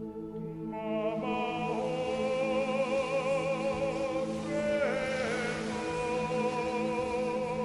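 Background music: a steady held drone, joined about a second in by a singing voice holding long notes with vibrato.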